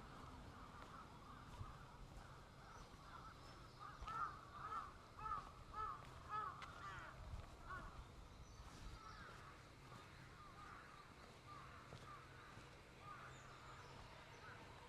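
Faint, distant birds calling: a run of short, repeated calls about four seconds in, growing sparser afterwards, over a low steady hum.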